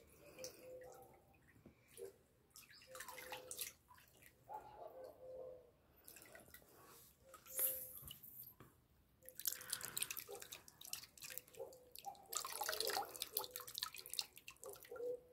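Hands working Orbeez water beads in a tub of water, making irregular splashes and drips, with louder splashing stretches about six, nine and twelve seconds in.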